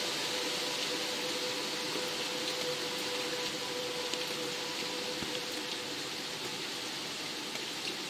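Steady rain, an even hiss with a few faint drop ticks, over a faint steady tone.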